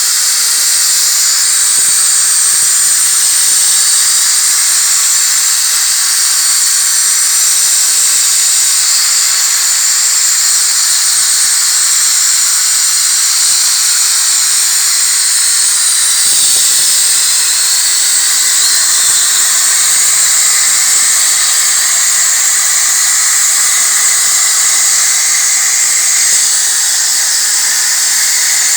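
CNC plasma torch, fed by a Star Shark X50 plasma source, cutting steel plate: a loud, steady, high-pitched hiss of the arc and its air jet.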